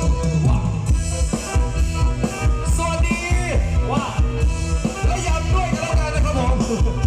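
Amplified live band music with a steady, heavy bass beat and a melodic lead line, played loud through a stage sound system.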